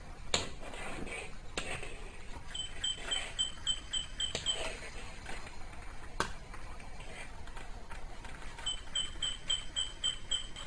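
Electronic chirping from a toy squirrel: two runs of short, identical high pips, about three a second, with a few sharp clicks between them.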